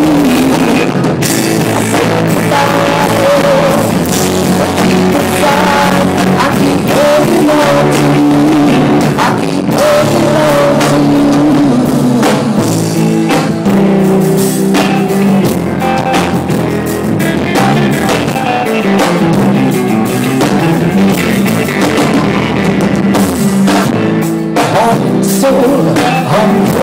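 Live band playing through the PA: electric guitars and a drum kit at full volume, recorded close to a speaker.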